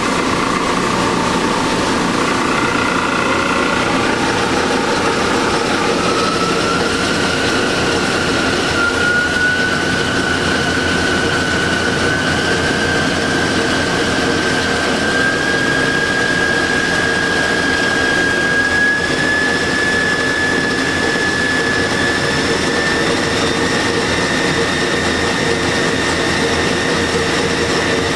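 Clausing 5902 variable-speed metal lathe running with its spindle and chuck spinning: a steady mechanical running sound with a whine that rises slowly in pitch as the spindle speed is turned up, then levels off.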